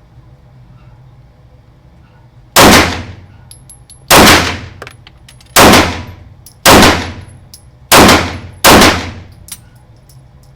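Six pistol shots fired one at a time, about a second or a second and a half apart, starting between two and three seconds in, each followed by a short echo off the indoor range walls; small metallic clicks come between the last shots.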